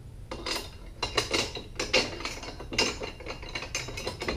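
Ratchet wrench clicking in quick, irregular runs as a bolt is run in to fasten a Minn Kota Talon jack plate adapter bracket.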